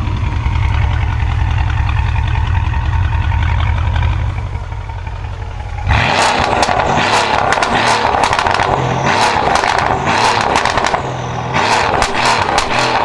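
Mercedes-Benz S63 AMG (W221) twin-turbo V8 running through a decat exhaust. For about the first six seconds there is a low, pulsing rumble. It then changes abruptly to a louder, rougher exhaust note full of rapid crackles and pops from the pops-and-bangs ECU tune.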